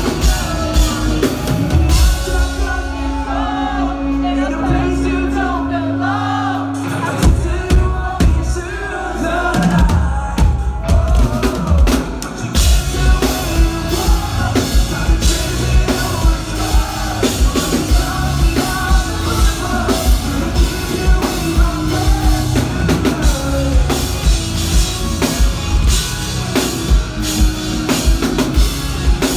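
Live rock band playing, recorded on a phone in the crowd: singing over drum kit and bass. The drums drop back under a long held low note a couple of seconds in, then the full band comes back with a steady beat about twelve seconds in.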